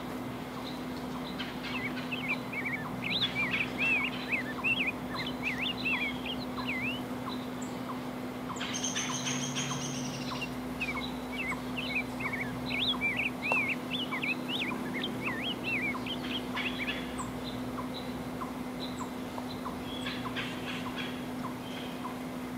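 A songbird singing two long runs of quick, warbling phrases, with a brief, very high, thin call in between, over a steady low hum.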